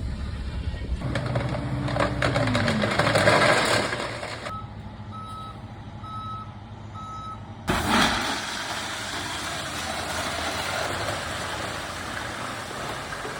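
Dump truck running under load, its engine note falling at about two seconds; then a backup alarm beeping in evenly spaced pulses for about three seconds, followed by a sudden return to steady truck noise.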